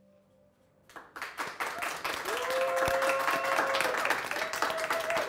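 Audience applause and clapping, starting suddenly about a second in and then running on steadily.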